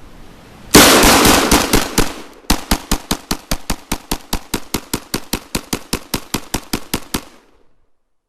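Century Arms PAP M92 pistol in 7.62x39mm firing rapidly. A dense, fast string of shots lasts about a second and a half, then a brief pause, then steady fire at about six shots a second that stops about a second before the end.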